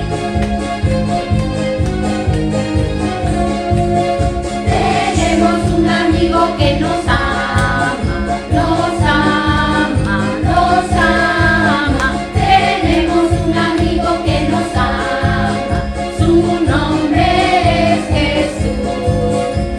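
Recorded song with a steady beat; voices singing a melody come in about five seconds in.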